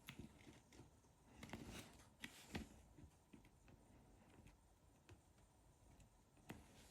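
Near silence with a few faint clicks and taps of small parts being handled, most of them between one and three seconds in and one more near the end.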